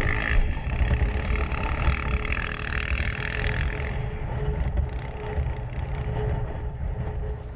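Motorcycle engine running while riding on a rough trail, with a heavy low rumble of wind or jostling on the microphone.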